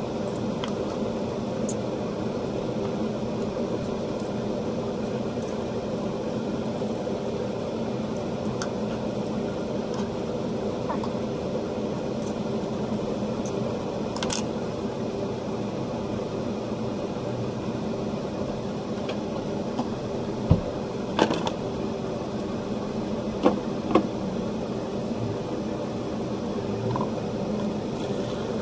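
Steady hum of a running kitchen appliance's motor or fan. A few sharp clicks and knocks come about two-thirds of the way through.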